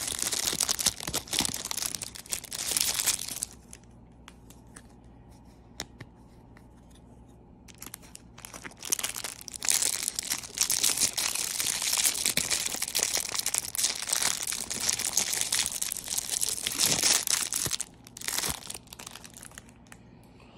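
Clear plastic wrapper crinkling and tearing as a foam squishy toy is pulled out of it by hand. The crinkling comes in two long spells with a quiet pause of about four seconds between them, and one last short rustle near the end.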